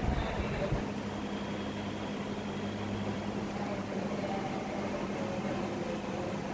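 A steady low machine hum over a noise haze, with a deeper rumble that drops away about a second in.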